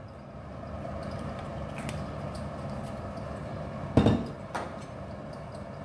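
A glass bottle knocking down onto a kitchen counter about four seconds in, followed by a lighter knock, over a low steady hum.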